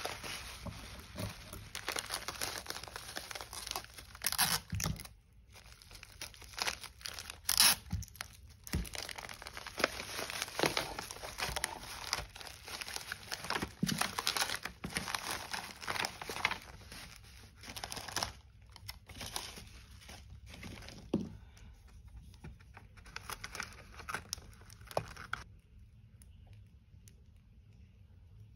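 Hands crinkling black bubble wrap and plastic packaging, then rustling a kraft paper envelope as the wrapped item is slid in, with a few sharp crackles. The handling grows sparser after about two-thirds of the way and quiet near the end.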